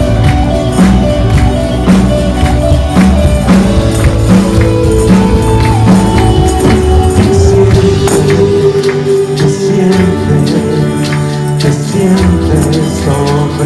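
Live worship band music, with drums, bass, guitar and keyboard, and ribbon tambourines shaken and struck in rhythm by dancers. Singing is heard over it.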